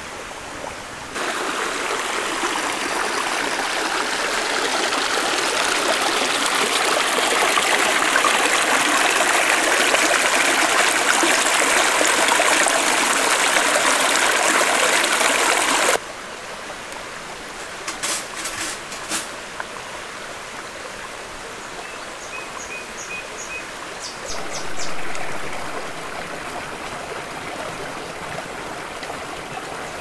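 Loud, steady rush of a forest stream that starts and stops abruptly, then a quieter stretch with a few sharp clicks and short repeated bird chirps.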